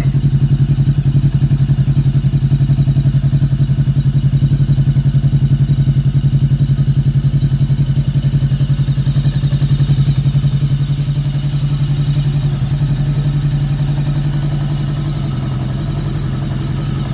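Voge 525DSX parallel-twin engine idling steadily through an aftermarket Two Brothers M2 exhaust, with a bassy note.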